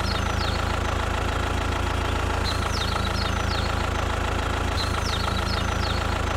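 Engine running steadily at idle, an even hum that does not change. Three short clusters of high, falling chirps sound over it.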